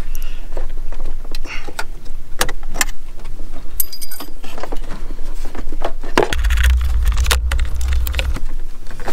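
Clicks and light rattles of a rubber radiator hose and its plastic connector being worked loose in a BMW N54 engine bay. A low rumble lasts about two seconds, a little past the middle.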